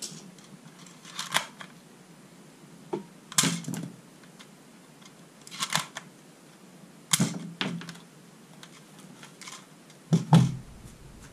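Plastic toy dart pistol being handled, with about eight short separate clicks and clacks as suction-cup darts are pushed into the barrel and shot. Near the end comes a heavier knock as the gun is put down on the table.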